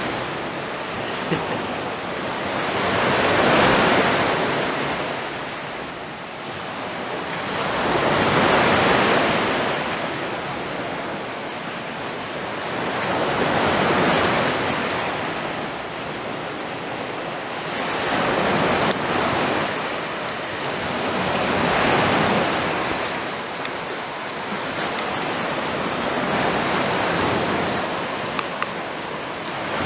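Sea waves breaking on the shore, the surf swelling and fading in slow surges about every four to five seconds.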